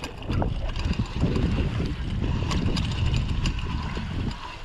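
Mountain bike rolling over a rocky trail: wind buffeting the microphone as a low rumble, with frequent rattles and clicks from the bike and tyres on stones.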